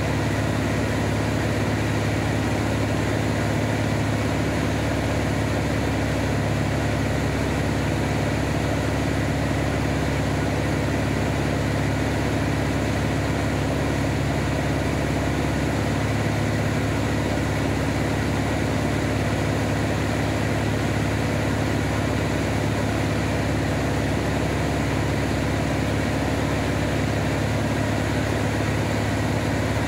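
Van's RV-7A light single-engine propeller plane in flight: a steady, unchanging drone of engine and propeller with rushing air.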